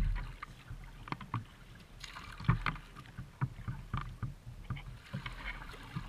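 Kayak being paddled: irregular splashes and light knocks from the paddle on the water and the hull, with one sharp knock right at the start.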